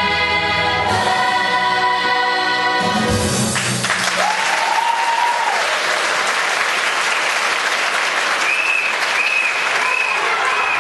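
A large stage cast singing a held final chord that cuts off about three and a half seconds in, followed by loud audience applause with some cheering and whistling over it.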